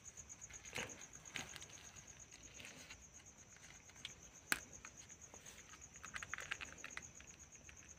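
A night insect's steady, rapidly pulsed high trill, with faint rustles and clicks from handling, and one sharper click about four and a half seconds in.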